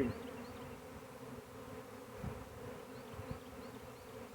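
A honey bee swarm buzzing as one steady hum, with many bees fanning. Two faint knocks come about two and three seconds in.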